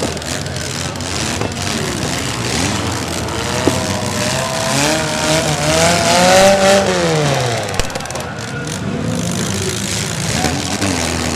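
Several demolition derby car engines running and revving. The loudest rev climbs and falls away about five to seven seconds in, and there are a couple of sharp knocks.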